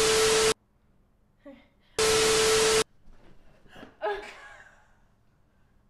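Two bursts of TV-static sound effect, hiss with a steady tone through it, each under a second: one at the start and one about two seconds in. About four seconds in comes a girl's short breathy gasp.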